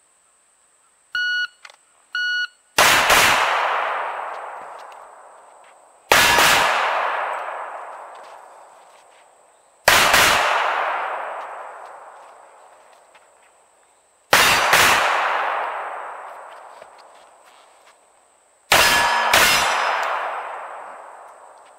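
Shot timer beeps twice, then a pistol fires five times through a timed box drill, mostly pairs of quick shots a few seconds apart. Each shot or pair has a long echo fading away over about three seconds.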